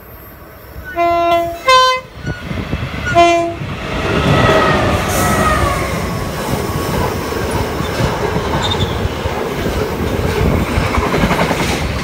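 Freight locomotive horn sounding three blasts of several tones at once, the middle one short and at a different pitch. The locomotives then pass with a falling engine note, followed by the steady running noise of double-stacked container wagons on the rails.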